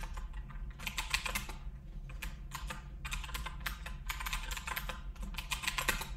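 Typing on a computer keyboard: rapid keystrokes in quick runs with short pauses between them.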